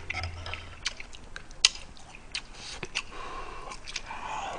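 Close-up eating sounds: wet chewing with sharp mouth clicks, and a noisy slurp as ramen noodles from a spicy stew are sucked in near the end.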